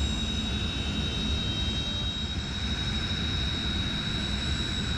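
Jet trainer's turbofan engines running with a steady high-pitched whine over a low rumble.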